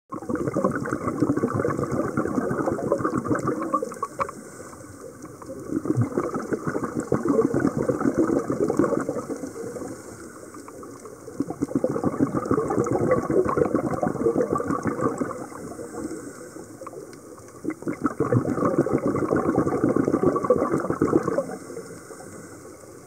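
Scuba diver breathing through a regulator underwater: four long spells of exhaled bubbles, a few seconds each, with quieter gaps between as the diver breathes in.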